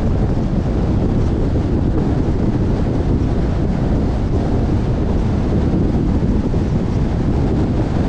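Steady rush of wind buffeting the microphone on a moving car, mixed with low road rumble at driving speed.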